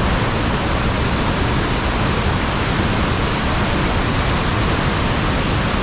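The Rhine Falls, a large waterfall: a loud, steady rush of falling water with no break or change.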